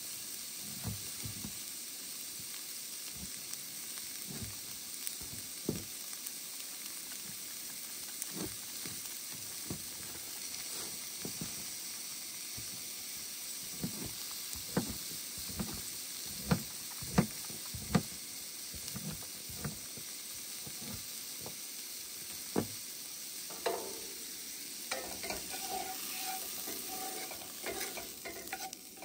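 Diced vegetables sizzling steadily in a cast iron pan on a camp stove. Over it, a knife taps irregularly through a zucchini onto a plastic cutting board. Near the end a wooden spatula stirs and scrapes the pan.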